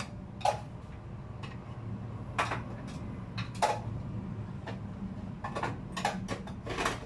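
Irregular light clicks and knocks of kitchen items being handled and set down on a counter, a dozen or so over several seconds, over a steady low hum.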